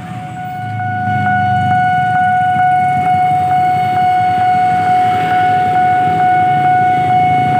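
A railway warning signal: one steady, high-pitched tone held without a break, with faint regular ticks beneath it.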